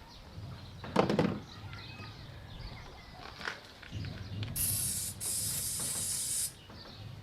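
A single knock about a second in, then pressurised spray hissing in two bursts, stopping shortly before the end and starting again.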